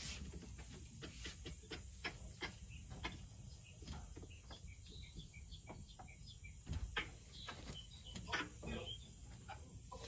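Quiet, irregular clicking with a few short high chirps as nitrogen pressure pushes an A-Jacks Pipe Wiper foam pig through a copper refrigerant line set, over a low steady rumble.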